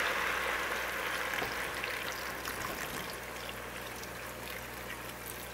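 Stock poured from a glass jar into a pot of hot sautéed vegetables: a steady splashing trickle that slowly gets quieter.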